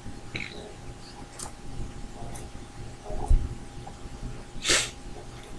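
A man breathing and sniffing in a small room, with a sharp sniff or hard exhale about three quarters of the way in and a low bump a little after three seconds. A faint steady hum sits underneath.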